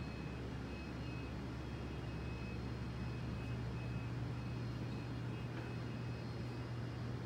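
Steady low hum under a hiss of room noise, with a faint high tone that flickers on and off.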